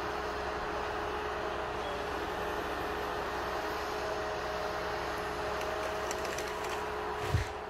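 Heavy forestry machine's engine running steadily with a constant hum, and one heavy thump about seven seconds in.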